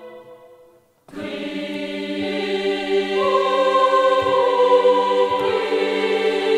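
Sampled women's choir from the EastWest Hollywood Choirs virtual instrument singing sustained chords played from a keyboard. A held chord dies away, then after about a second's gap a new chord begins, and its upper voices move to new notes about two seconds later and again near the end.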